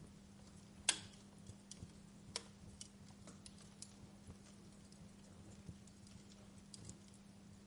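Wood fire crackling in a fireplace: scattered sharp pops and snaps, the loudest about a second in, over a faint steady low hum.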